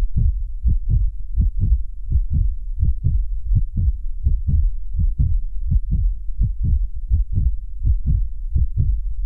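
Rapid heartbeat sound effect: even, low thumps close to three a second, starting and stopping abruptly.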